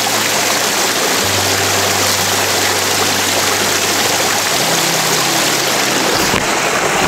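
Small forest stream rushing and splashing over rocks, a steady, loud rush of water.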